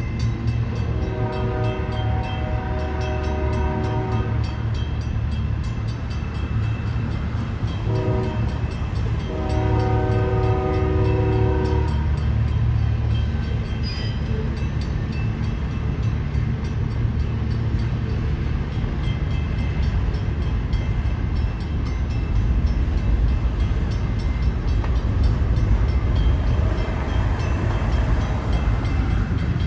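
A passing train's locomotive sounding its horn: a long blast, then a short blast, then another long one, over the steady low rumble of the train rolling by.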